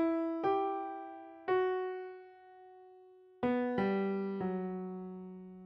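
Slow electronic keyboard music in electric-piano-like tones: about six single notes struck one after another, each left to ring and fade, with a lower note sounding and holding from about four seconds in.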